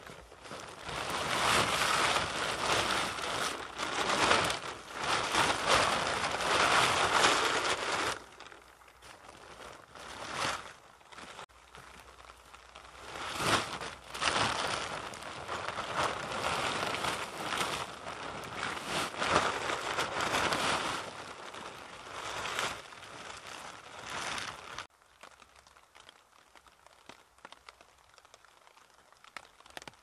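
A plastic tarp crinkling and rustling as it is handled and tipped out with a load of moss. The crinkling is heaviest for the first eight seconds, comes in shorter bursts after that, and stops about 25 seconds in.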